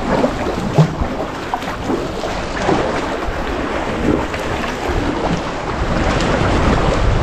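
Water sloshing and lapping around a sea kayak as it is paddled, with wind buffeting the microphone; the low wind rumble grows stronger near the end.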